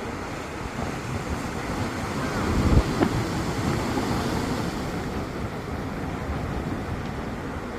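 Sea waves washing and breaking on the shore, with wind buffeting the microphone; one wave surges up and crashes loudest about three seconds in.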